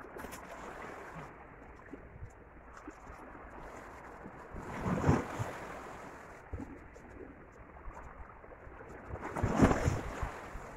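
Small sea waves washing against shore rocks, with two louder surges of surf, about five seconds in and again near the end.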